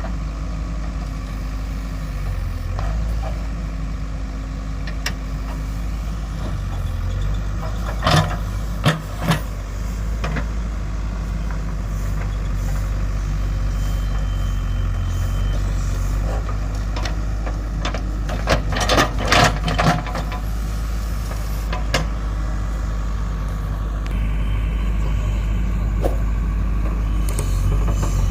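JCB 3DX backhoe loader's diesel engine running steadily, with a few sharp metallic clanks about eight seconds in and a quick cluster of them about two-thirds of the way through.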